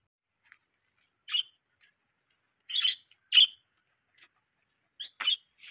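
Dog nail clippers snipping through a dog's claws: short, sharp clicks at irregular intervals, four of them louder than the rest.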